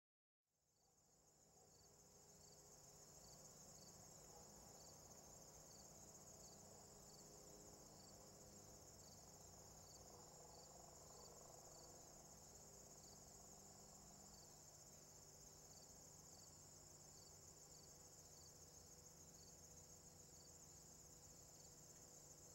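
Faint chorus of crickets trilling steadily, high-pitched, fading in over the first two seconds, with a slower chirp repeating about once a second underneath.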